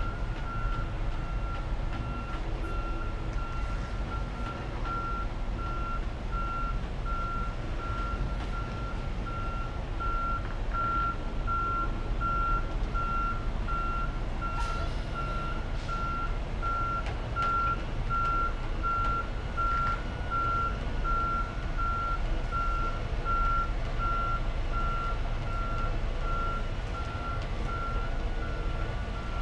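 Tractor-trailer's backup alarm beeping steadily in a regular on-off pattern while the rig reverses into the dock, over a low steady rumble.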